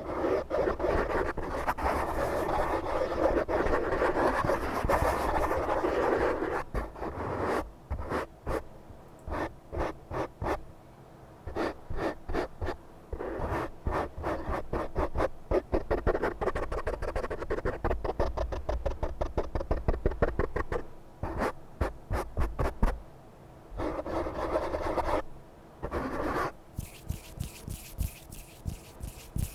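Close-miked scratching and rubbing: a steady rustling scrape at first, then a long run of quick, short scratching strokes, and a brief rubbing scrape again near the end.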